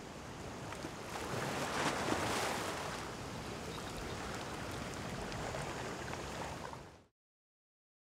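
Sea waves washing onto a beach, one swell rising about two seconds in, then a steady wash that cuts off suddenly near the end.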